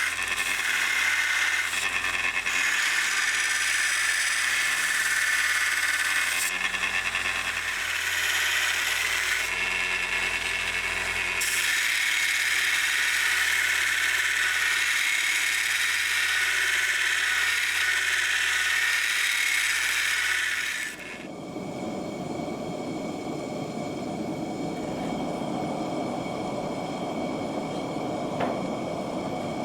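A power tool working the knife's steel: a steady, loud grinding hiss that cuts off suddenly about two-thirds of the way through, giving way to a quieter, lower machine rumble.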